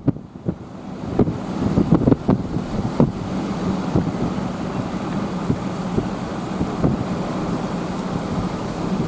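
Strong wind buffeting the microphone: a steady low rumbling noise broken by short gusty thumps.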